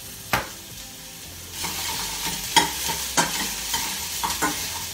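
Chopped vegetables frying in hot olive oil in a pan, a steady sizzle that grows louder about a second and a half in as they are stirred, with a utensil knocking against the pan several times.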